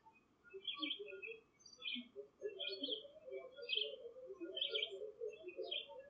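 A songbird singing short chirped phrases about once a second, over a busy patter of faint, short, low notes.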